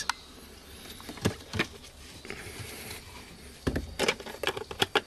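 Light plastic clicks and knocks from handling the car's lower dash trim covers around the OBD port: a couple of single clicks, then a quick run of clicks and rattles near the end.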